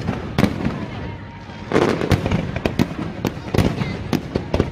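Aerial fireworks shells bursting in quick succession: a run of sharp bangs with crackling, which grows louder and denser about two seconds in. A few faint whistles rise through it.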